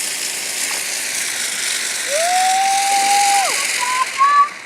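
Ground fountain firework spraying sparks with a loud, steady hiss that dies away near the end.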